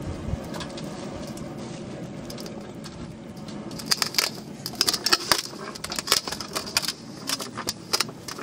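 A hand mixing minced mutton, spice powders and chopped shallots in a steel bowl. From about four seconds in come quick metallic clinks and scrapes against the bowl, over a steady low background rumble.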